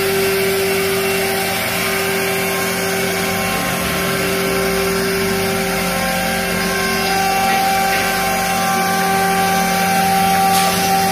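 CNC router spindle running steadily as its bit cuts the outer perimeter of a sign from sheet material: a steady whine over a constant hiss. A higher tone joins about seven seconds in.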